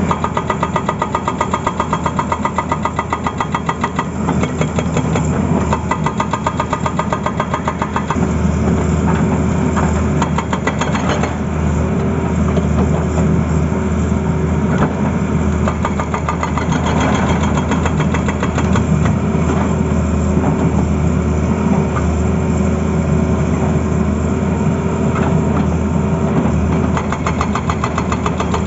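Tata Hitachi excavator's diesel engine running steadily with a deep rumble. A fast, even clatter rides on it, strongest over the first eight seconds, then the engine settles to a smoother run.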